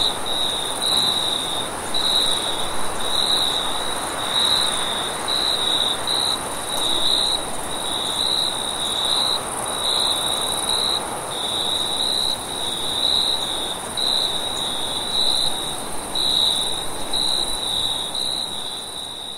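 Crickets chirping in steady pulses roughly once a second, with a continuous high trill above them, over a soft rushing wind.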